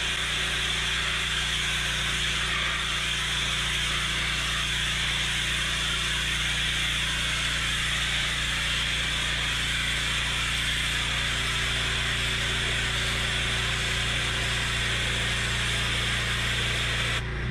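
Pressure-washer lance spraying high-pressure water onto stone patio slabs, a steady loud hiss of spray on stone over a constant low hum from the machine.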